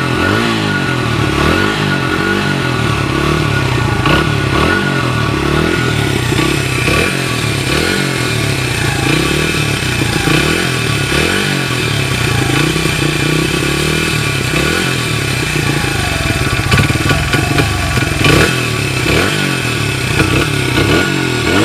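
1994 Honda XR100R's single-cylinder four-stroke engine idling, its speed wavering up and down. The fuel tap is shut and the carburetor is being run dry, so the engine is close to running out of gas.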